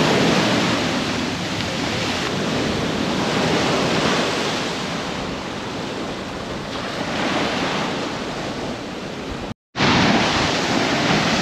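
Ocean surf breaking and washing up a sand beach, a steady rush of water. The sound drops out for an instant near the end, then a wave surges in louder.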